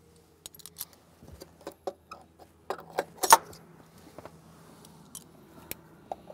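Cleco pliers and spring-loaded Cleco sheet-metal fasteners clicking and clinking as the fasteners are pushed into drilled holes to hold a bracket in place: scattered sharp metallic clicks, the loudest about three seconds in.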